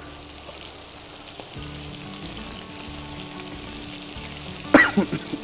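Chicken tikka skewers sizzling in oil in frying pans: a steady frying hiss. A brief bit of voice cuts in near the end.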